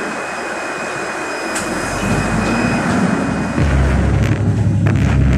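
NefAZ 5299 city bus engine pulling away, a deep rumble that builds about a second and a half in and grows louder from about three and a half seconds in. A steady high-pitched tone sounds until about three and a half seconds in.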